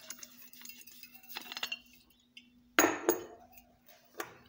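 Small metal parts of a gas torch and its refill cylinder clinking and knocking as they are handled: a few sharp clinks, the loudest pair about three seconds in.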